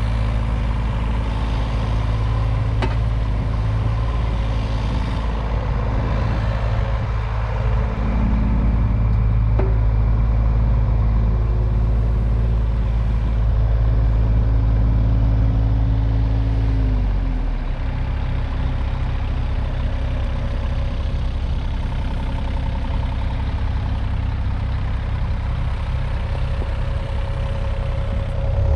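John Deere 35G mini excavator's diesel engine running steadily while the machine swings and tracks. About two-thirds of the way in, the engine note drops lower and becomes a pulsing throb.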